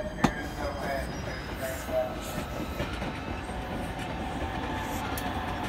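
A train running by on the rails: a steady rumble of wheels on track, with one sharp click just after the start.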